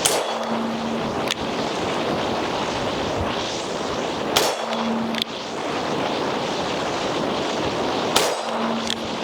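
Ruger GP100 seven-shot .357 revolver fired single action: three shots about four seconds apart, each followed under a second later by a fainter sharp click. Wind noise on the microphone throughout.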